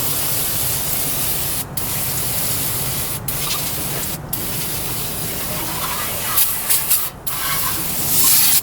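Pressure washer spraying water in a steady hiss, with a low hum from its pump underneath. The spray cuts out for a moment several times as the trigger is let go, while the hum carries on.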